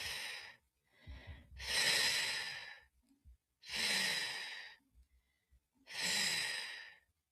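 A voice pronouncing the phonics sound of the letter F, a voiceless 'fff' hiss, three times, each held for about a second.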